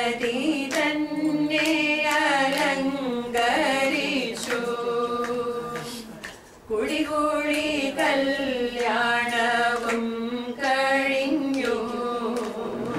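A small group of women singing a song together without accompaniment, in long held, wavering notes, with a short break for breath about halfway through.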